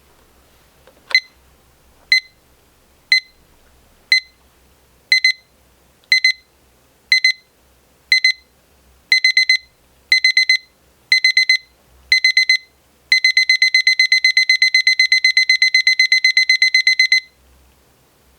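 Rhythm 4RL439SR04 alarm clock's electronic alarm beeping in a step-up pattern: high-pitched single beeps once a second, then pairs of beeps, then groups of four, then rapid continuous beeping. It cuts off suddenly near the end.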